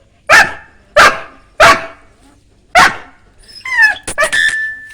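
A dog barking: four sharp single barks spaced about a second apart, then a higher, wavering cry near the end.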